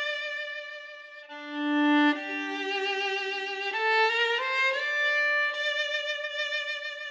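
Slow instrumental background music of long held notes; a lower line comes in about a second in and climbs step by step beneath a held upper note.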